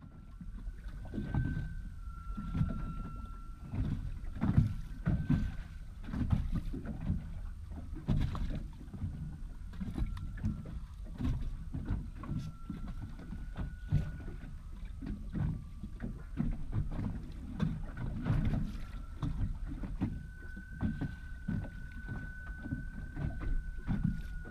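Small waves slapping irregularly against the hull of a drifting boat, with wind buffeting the microphone. A faint high whine holds through it, stepping slightly up and down in pitch.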